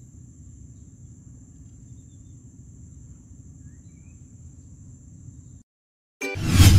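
A steady, high insect drone over a low outdoor rumble; it cuts off suddenly about five and a half seconds in. After a short silence, a loud whoosh and music start near the end.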